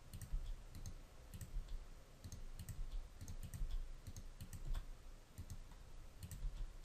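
Faint computer keyboard key presses and mouse clicks, sharp and irregular, a few a second, mixed with soft low thumps.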